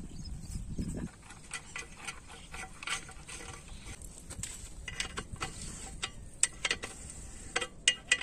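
A spanner working a bolt on the flange of a water pump's delivery pipe: scattered metal clicks and clinks, with the sharpest ones in the last couple of seconds.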